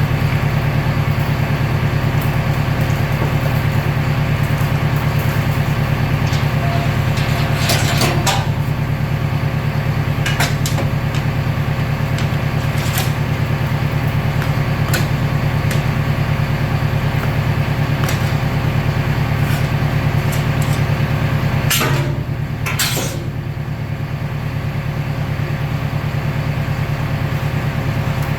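Recycling baler running with a steady low hum, with several sharp metallic clanks and knocks scattered through it.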